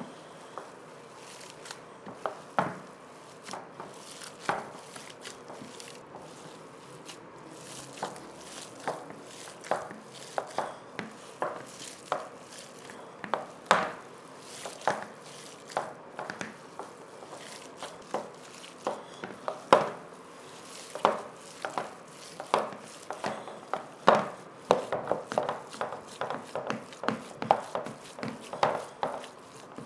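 Knife chopping food on a cutting board: short irregular knocks, roughly one a second at first, coming quicker and more often in the last few seconds.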